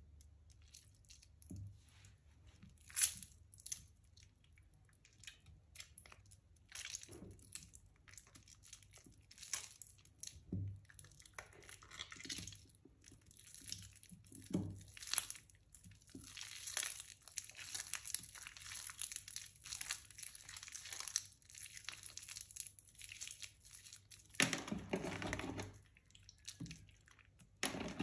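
Soaked, mushy Palmolive bar soap being squeezed and crumbled by hand in a tub of water: irregular soft crackling, crunching and squishing. A louder, longer wet stretch comes about three seconds before the end.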